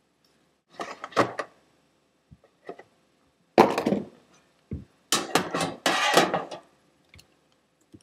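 Handling noise as a new Leatherman Super Tool 300 multitool is unpacked: clusters of clicks, knocks and rustling about a second in, around four seconds in, and a longer, denser run from about five to six and a half seconds.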